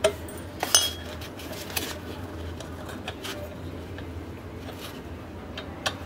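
A handful of short metallic clinks and taps from hands working on the wiring and metal fittings of a refrigerator compressor being fitted; the sharpest, with a brief ring, comes about a second in. A steady low hum runs underneath.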